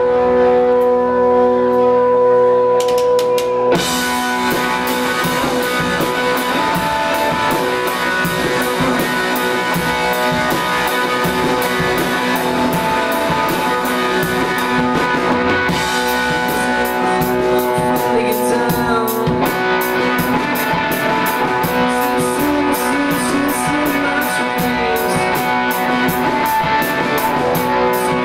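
Live rock music from an electric guitar and a drum kit: the guitar rings alone for the first few seconds, then the drums and cymbals come in with a steady beat under the guitar.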